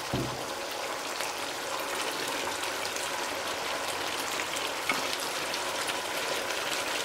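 Chicken and sauce frying in a wok, a steady sizzle of many small crackles and pops from a sauce cooked down until its oil has surfaced. Just after the start there is a soft low thump as shredded cabbage is dropped in.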